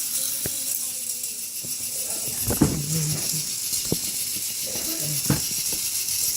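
K'Nex roller coaster running: a motor-driven plastic chain lift and coaster car clicking and clattering on plastic track. There are sharp knocks every second or so and two short rattling spells, over a steady hiss.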